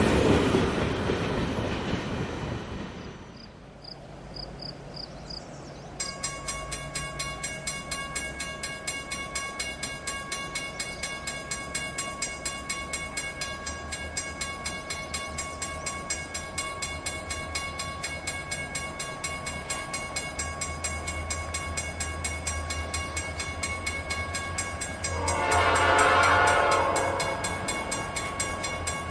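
Freight cars rolling past and fading away as the end of a train goes by. After a cut, a grade-crossing bell rings in rapid, steady strokes over the low rumble of approaching diesel locomotives. About 25 seconds in, a locomotive horn sounds for a couple of seconds.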